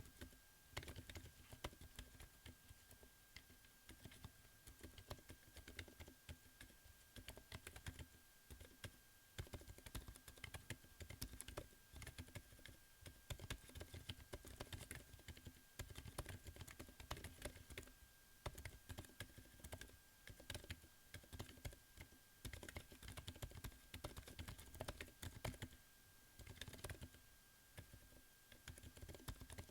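Steady typing on a Corne v4 Chocolate split keyboard with Lofree x Kailh Hades silent linear low-profile switches: a quiet, fast run of muted keystrokes, broken by a few short pauses.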